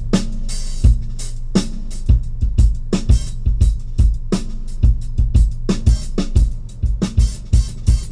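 Drum-heavy music played loud through a Honda Mobilio's stock speakers, driven by an Asuka TR-309TV head unit with a Momentum DSP-3S processor and an MB Quart under-seat subwoofer. Deep kick drum hits, about two a second, over a steady bass line, with sharp snare strikes, heard in the car's cabin as a bass test.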